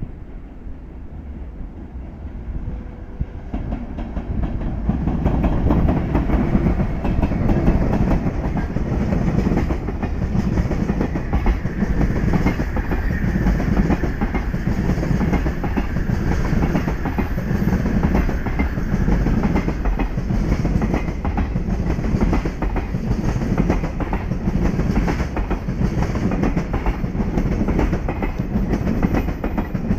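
Container freight train hauled by an EF510 electric locomotive running through the station, wheels clattering rhythmically over the rail joints. The noise builds over the first few seconds and then holds steady and loud.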